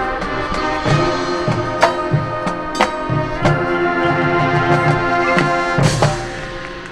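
High school marching band playing: the brass section holds loud sustained chords, punctuated by sharp percussion hits about once a second. The sound dies away about six seconds in.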